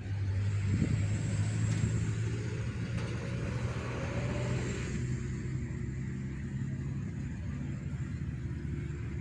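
A heavy road vehicle's engine running with a steady low drone as it passes close by, jumping up in level at the start.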